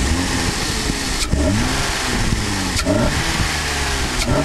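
BMW E30 with a swapped-in M50 inline-six, blipped with the throttle about every second and a half, each rev rising sharply and falling back toward idle.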